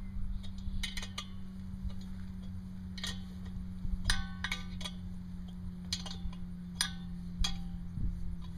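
Vibracorer's vibrator head clamped to a metal core pipe, running with a steady low hum as it shakes the pipe down into the marsh sediment. Sharp metallic clinks ring out every second or so.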